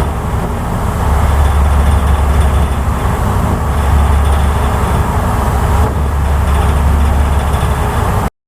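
A passenger ferry's engines running under way with a steady low rumble and a hiss over it. The sound cuts off abruptly near the end.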